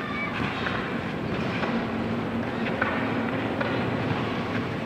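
Outdoor ambience of a youth soccer match: a steady rushing noise with faint children's shouts and a few sharp thuds of the ball being kicked, the clearest about three seconds in.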